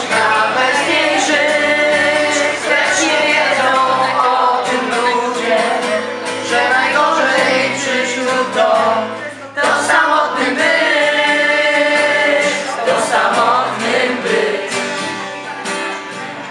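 A group of people singing together to an acoustic guitar, with a brief break a little past halfway before the singing picks up again.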